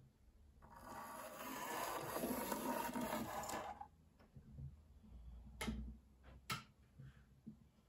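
Small electric motor of an Arnold N gauge diesel shunter running, a buzzing whir for about three seconds as the locomotive moves up to the wagons, then stopping. Two sharp clicks about a second apart follow.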